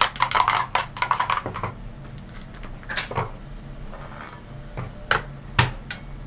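Spoon beating eggs in a plastic bowl: a fast run of clinks and taps for about the first two seconds. Then a few separate knocks of a kitchen knife and plastic cutting board being handled.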